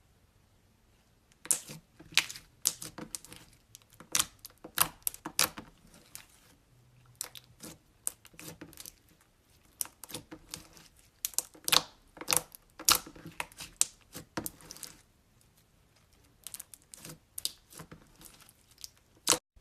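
Slime being squeezed and stretched by hand, giving off irregular sharp pops and crackles in bursts with short pauses between.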